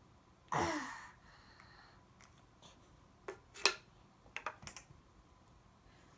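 A short sound sliding down in pitch about half a second in, then a few sharp light clicks and taps, typical of plastic Play-Doh tools knocking on a table.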